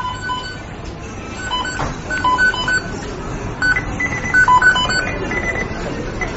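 McDonald's kitchen beeping sound effect: the electronic timer beeps of the kitchen equipment, many short beeps at three or so different pitches overlapping in an irregular pattern over a steady low background noise, the beeps coming thicker in the second half.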